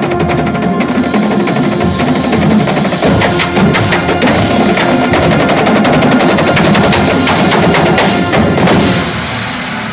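Full marching band playing loud: a drumline of snare, tenor and bass drums drives a fast, dense rhythm under flutes and brass. About nine seconds in the drums stop and a held chord rings on more softly.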